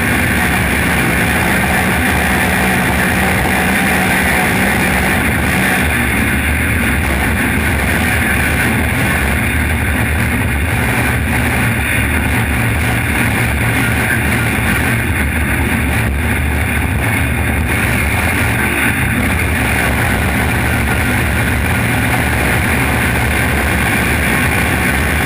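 Trophy truck driving at speed over dirt and gravel: a loud, steady mix of engine, wind and tyre noise, picked up by a camera mounted on the chassis beside the wheel.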